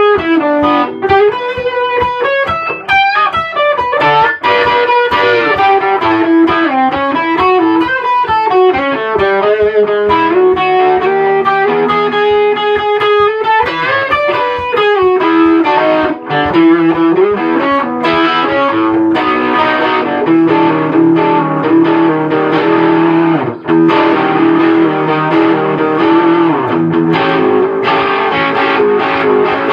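Electric guitar with distortion playing a lead line, with bent notes and quick runs over sustained lower notes.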